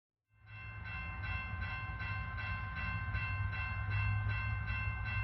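Train running on the rails: a steady low rumble with a regular clack about two and a half times a second and a steady high-pitched tone over it.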